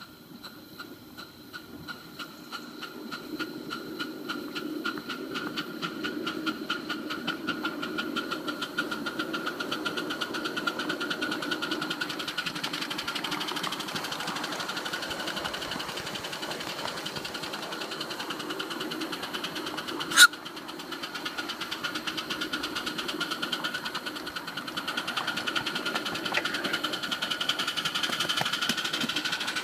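Miniature live-steam locomotive chuffing as it pulls away, its exhaust beats starting slow and quickening steadily as it gathers speed. A single sharp click stands out about two-thirds of the way through.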